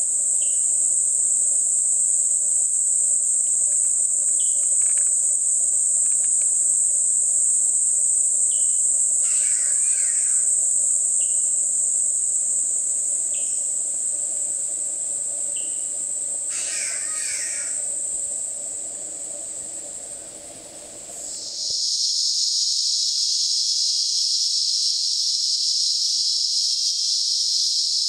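Tropical rainforest ambience: a loud, steady, high-pitched insect drone, with short falling chirps every couple of seconds and two harsh bird calls. About 21 seconds in, the drone suddenly gives way to a different, lower-pitched insect buzz.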